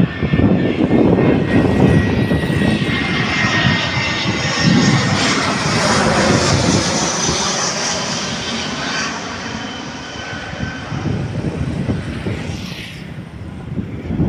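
Airbus A321 airliner on final approach passing low overhead, its jet engines loud with a high whine that falls in pitch as it goes past, then fading as it moves away toward the runway. Wind rumbles on the microphone.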